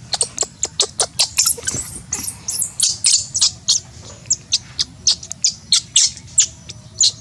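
Bird chirping close by: a fast, loud run of short, high chirps, several a second, which stops just before the end.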